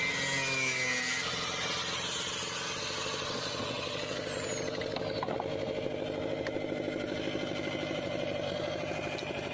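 Electric angle grinder running steadily as its disc grinds the cut edge of a fibreglass boat hull, with a fast rasping pulse. This roughens and cleans the edge so the fibreglass and resin will bond.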